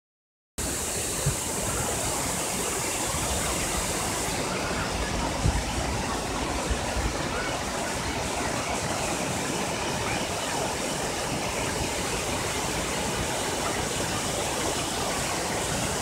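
Shaki waterfall's broad cascade pouring over rock: a steady, dense rushing of falling water. A couple of brief low thumps about one and five seconds in.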